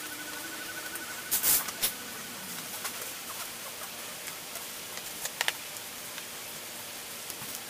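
Steady background hiss in a workshop, with a faint fast ticking that stops about a second in, a few sharp clicks and taps around a second and a half in, and a quick double click a little after five seconds.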